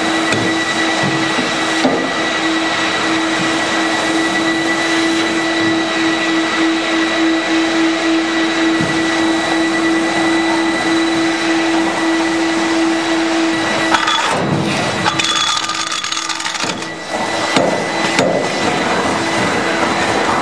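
Big Brute industrial vacuum cleaner running steadily, its hose nozzle sucking up sawdust and wood chips from inside a woodworking machine: a loud rush of air over a held motor tone. About two-thirds of the way through, the tone drops away and the air noise changes for a few seconds, then the steady sound returns.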